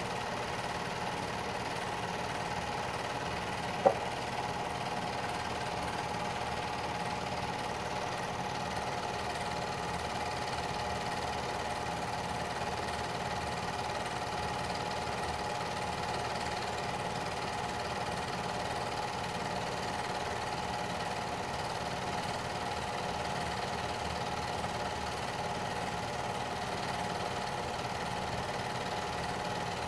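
Home-movie film projector running with a steady mechanical hum and whir, with one sharp click about four seconds in.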